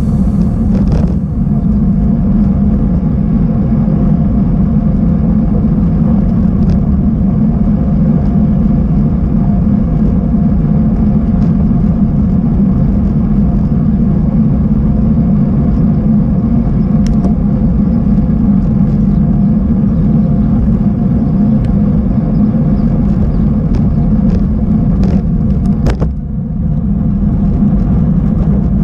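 Continuous low rumble of wind and tyre noise from a mountain bike ridden over a rough, broken track, with a few sharp knocks from bumps.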